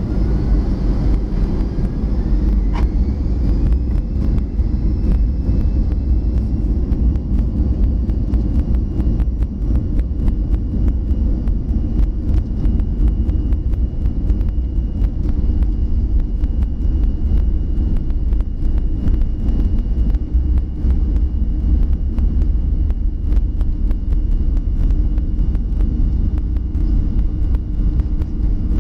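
Cabin noise of a Boeing 737-400 rolling on the ground: a steady low rumble from its CFM56 engines and wheels, with frequent small ticks and bumps. The engine whine rises in pitch in the first few seconds, then holds steady.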